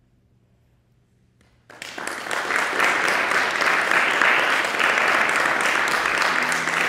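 A hush, then audience applause breaks out suddenly about two seconds in and keeps going steadily: clapping at the end of a solo classical guitar piece.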